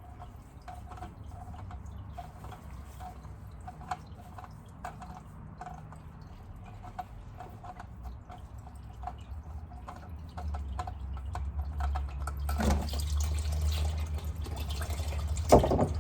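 Engine oil dripping from a loosened oil filter into a drain pan, a small drip about every second. In the last few seconds a louder rumbling handling noise comes in as the filter is taken off.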